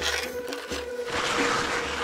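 Background music with a steady held note. From about a second in, a loud scraping hiss of skis sliding on hard, steep snow comes in over it.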